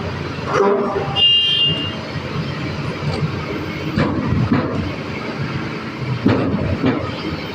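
Excavator diesel engine running steadily, with a short high-pitched squeal about a second in and a few sharp knocks later on.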